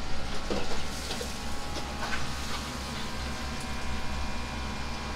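Steady low rumble and hiss of restaurant-kitchen machinery, with a few faint clinks of dishes in the first couple of seconds.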